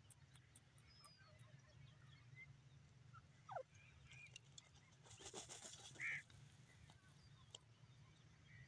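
Near silence with a faint steady low hum. About five seconds in comes a soft gritty rustle with fine ticks: a grey francolin dust-bathing, scattering dry soil and gravel. A few faint short chirps and one brief falling whistle sound over it.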